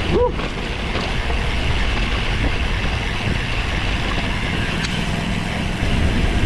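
Steady rush of wind and road noise over an action camera's microphone on a road bike ride, growing louder near the end.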